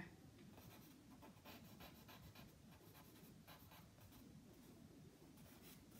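Willow charcoal scratching faintly on cartridge paper as a drawing is shaded, in short, irregular strokes.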